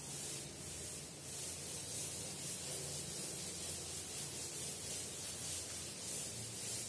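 A chalkboard duster rubbing across a chalkboard, wiping off chalk writing in repeated back-and-forth strokes: a soft scrubbing hiss.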